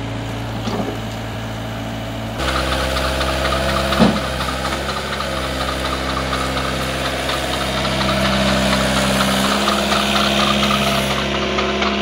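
Hyundai R555-7K mini excavator's diesel engine idling steadily, then about two seconds in it speeds up and gets louder as the machine travels on its steel crawler tracks. There is a single clank about four seconds in, and the engine note rises again later.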